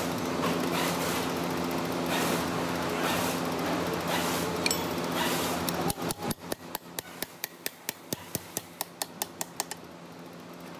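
A quick run of light metal taps, about five or six a second for nearly four seconds, seating a ball bearing onto the eccentric shaft of a cycloidal pinwheel reducer. A steady machine hum with workshop noise runs underneath and is loudest in the first half.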